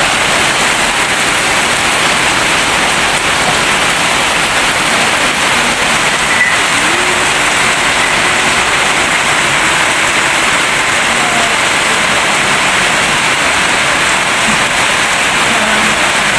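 Steady rain falling on dense garden foliage, an even hiss of drops on leaves.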